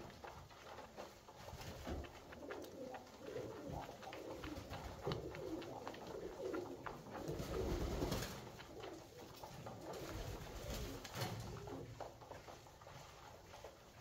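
A flock of Alföldi-Körösi tumbler pigeons cooing continuously, with quick sharp clicks of beaks pecking grain from a feeder trough.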